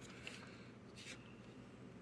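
Near silence: room tone with two faint, short scrapes.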